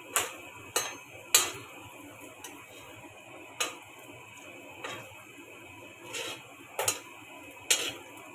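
Spatula knocking and scraping against a metal kadhai while curry leaves and green chillies fry in a little oil: scattered sharp clicks, roughly one a second, over a faint steady hiss.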